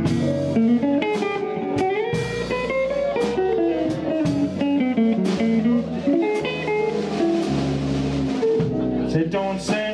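Live band playing an instrumental passage: a hollow-body electric guitar plays a melodic single-note lead line over bass guitar and drum kit.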